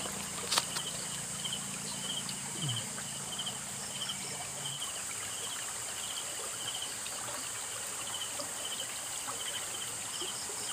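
Night insects: a steady high buzz with a cricket chirping about twice a second, over faint trickling creek water. One sharp knock sounds just after the start.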